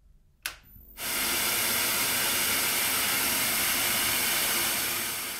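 Analogue television static hiss, a steady white-noise sound effect, loud and even. It comes in about a second in, after a single sharp click.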